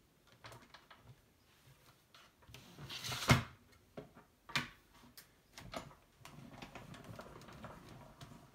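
Die-cutting and embossing machine in use: a few sharp clacks of the cutting plates being set on the bed, the loudest about three seconds in, then a steady grinding rumble from about six seconds in as the crank is turned and the plate sandwich with the embossing piece rolls through.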